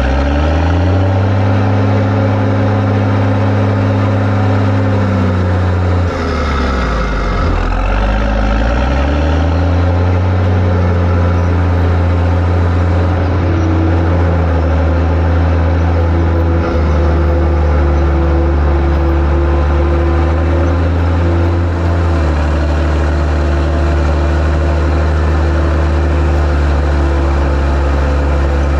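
Fendt Favorit 818 tractor engine running loud: it revs up about half a second in, drops back around six seconds, picks up again near nine seconds and then holds a steady speed.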